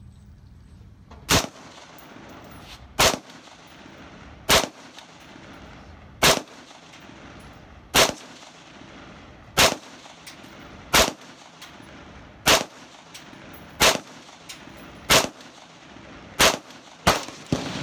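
Brownells BRN-16A1, a semi-automatic M16A1-pattern 5.56 mm rifle, firing slow aimed single shots about one every second and a half, a dozen in all, with the last two closer together.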